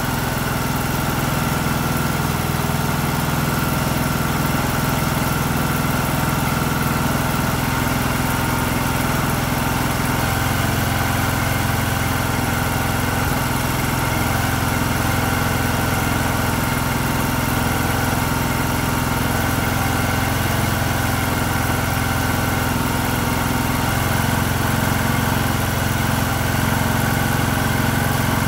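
Briggs & Stratton 19.5 hp single-cylinder lawn tractor engine running steadily on a newly fitted aftermarket carburetor, its note shifting slightly about ten seconds in and again near the end. It is running pretty good: the new carburetor has cured the engine's refusal to restart when warm.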